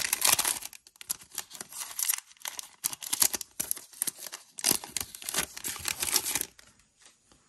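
Foil wrapper of a trading card pack being torn open and crinkled in the hands, a run of crackly tearing and crinkling bursts that stops near the end.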